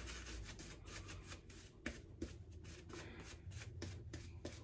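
Shaving brush swishing lather onto a bearded neck and jaw in many quick, faint rubbing strokes, with two sharper ticks about two seconds in.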